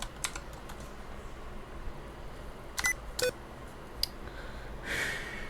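Computer keyboard keys being pressed one at a time as they are tested: a few separate clicks, two of them about three seconds in with a brief ringing ping.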